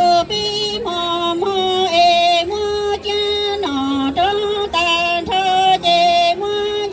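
A woman singing Hmong kwv txhiaj (sung poetry) into a microphone: held notes that step up and down in pitch, phrase after phrase with short breaks between them.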